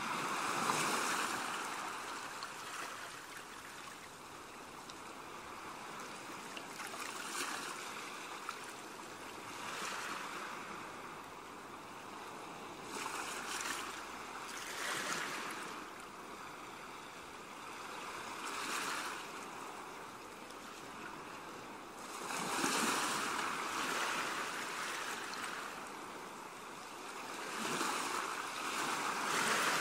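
Ocean waves washing in, a steady rush of water that swells and falls back every few seconds.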